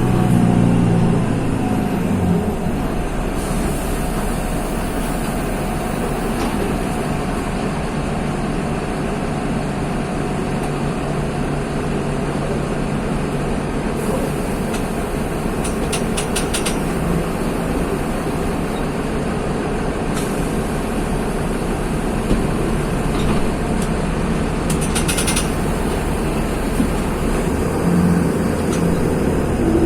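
Mercedes-Benz OM-926 LA six-cylinder turbodiesel of an OF-1724 city bus. It eases off in the first two seconds, then runs low and steady for most of the time, and picks up again near the end.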